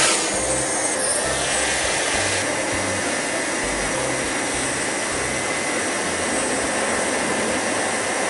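DJI Mavic Mini quadcopter's propellers running with a steady high whine and hiss as it lifts off and hovers, loudest right at the start.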